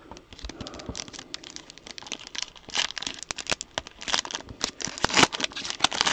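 Foil trading-card pack wrapper crinkling and tearing as it is handled and ripped open, a dense, irregular run of crackles.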